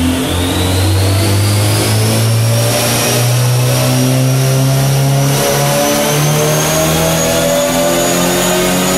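Turbocharged Subaru BRZ's 2.0-litre flat-four running under load, with the Garrett GT3076R turbo's high whistle rising steadily in pitch over the engine note. The engine note shifts about five seconds in.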